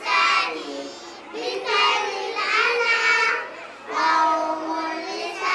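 A group of young children singing together in unison, in three short phrases with brief pauses between them.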